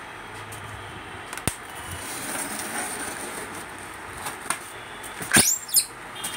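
Hands handling a thermocol (expanded polystyrene) packing block: a few light knocks and rubbing. About five seconds in comes a short, sharp squeak of the foam rubbing, the loudest sound.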